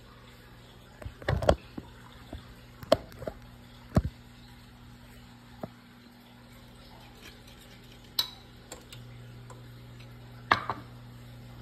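Cookware being handled on a glass-top electric stove: a frying pan and its lid knocked and clinked down in several sharp strikes, a cluster about a second in, then single knocks spread through the rest. Under them runs a steady low electrical hum that gets slightly louder about nine seconds in.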